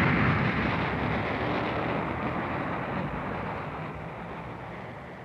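Animated-film sound effect of a missile's rocket motor climbing away after launch: a loud, even rushing rumble that fades steadily as it goes.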